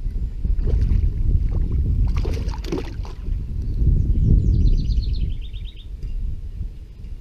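Hooked smallmouth bass splashing and thrashing at the surface beside a kayak, sharpest about two to three seconds in, over a steady low rumble. A short run of rapid high ticks follows about five seconds in.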